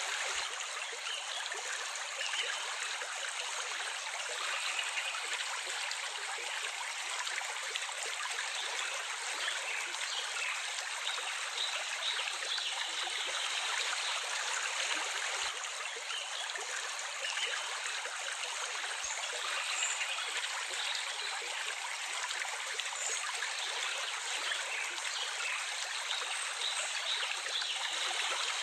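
Stream water running steadily, an even, continuous rush without breaks.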